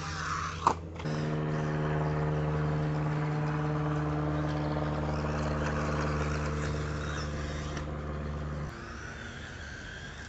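A steady motor hum at an even pitch starts suddenly about a second in and cuts off suddenly near the end. A sharp click comes just before it starts.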